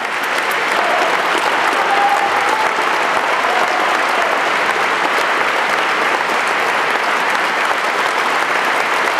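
Opera house audience applauding steadily as an aria ends, the singer taking her bow. A few faint voices call out over the applause in the first few seconds.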